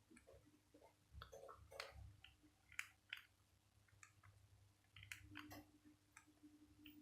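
Faint, irregular clicks of keypad buttons being pressed on a Nokia 8210 mobile phone while navigating its menus.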